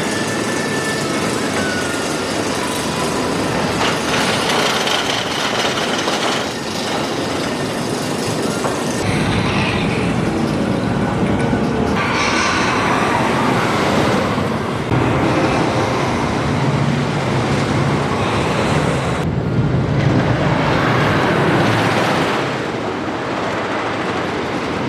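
Wooden roller coaster train running its circuit: a loud rumbling clatter of wheels on the wooden track mixed with rushing air, the sound changing abruptly several times.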